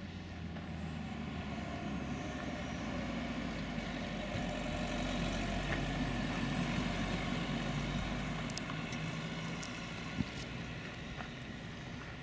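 Engine of a passing vehicle, growing louder to a peak in the middle and then fading away, with one sharp click near the end.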